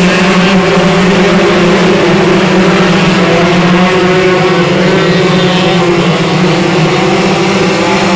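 A pack of 125cc winged micro sprint cars racing on the green-flag restart, their engines at high revs blending into a loud, steady mix of several engine notes as the field passes.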